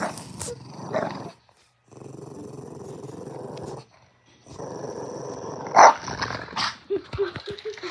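Boston terrier play-growling over a rubber toy ball: three long rough growls with short breaks between them, and a sudden louder sharp noise near the end of the third.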